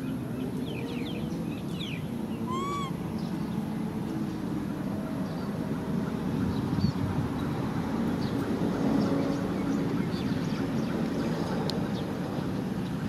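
Outdoor background: a steady low rumble with scattered high chirps, and one short arched squeak about two and a half seconds in.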